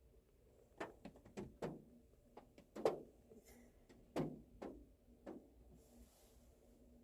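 Raindrops tapping irregularly on the roof of a car, heard from inside the cabin: about a dozen sharp, faint taps, each falling away quickly.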